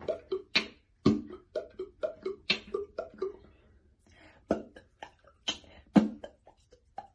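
Beatboxing: a quick run of mouth-made kick, snare and click sounds for about three seconds, then, after a short pause, a sparser string of single hits.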